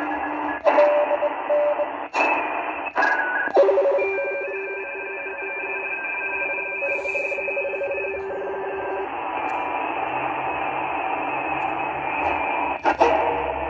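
ATS-20 (SI4732) shortwave receiver tuned in LSB through the CW portion of the 40-meter band. Band hiss carries several steady whistling tones of different pitches, with sharp clicks during the first few seconds as the dial is stepped and again near the end. The uploader takes these signals for possible interference from Russia or Ukraine.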